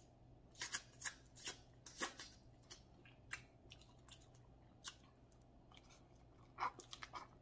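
Crab legs being cracked and eaten close to the microphone: faint, irregular sharp clicks and crackles of shell with chewing.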